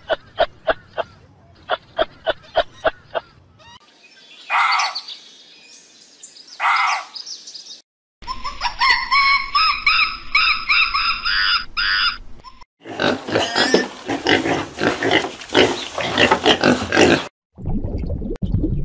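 A sequence of different animal sounds, one after another: a run of sharp clicks, two short calls, several seconds of high, wavering pitched calls, then a run of rough, rapidly repeated calls.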